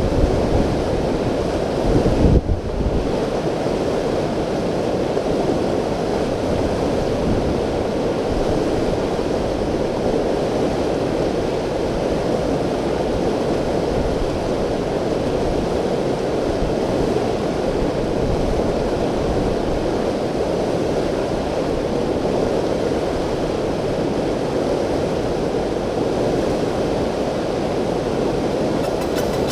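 Steady rushing noise of wind buffeting the microphone, with a louder gust about two seconds in.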